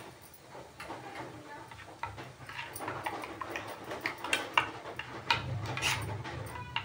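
Cumin seeds crackling and spitting in hot oil in a frying pan, a dense run of small irregular pops, busiest in the second half. The oil is hot enough for tempering.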